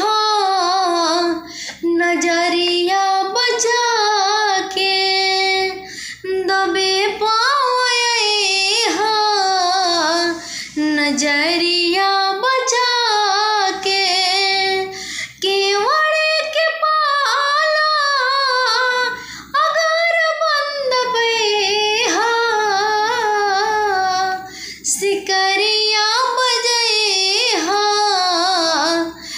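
A woman singing a Bhojpuri folk song solo, with no instruments. Her voice slides and wavers through long ornamented phrases, with short breaks for breath between them.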